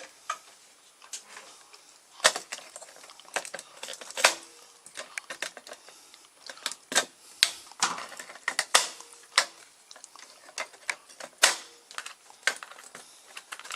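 Irregular sharp clicks, snaps and rattles of plastic wiring-harness connectors being worked loose from a refrigerator's electronic control board.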